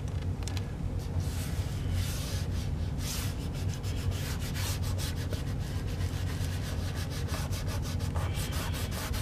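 A hand rubbing blue masking tape down to press an Oracal vinyl stencil onto a motorcycle fairing: a continuous dry scuffing with many small crackles, over a steady low hum.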